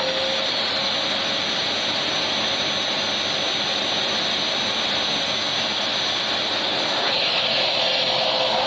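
Vacuum cleaner running steadily: a constant airy whoosh with a faint high motor whine.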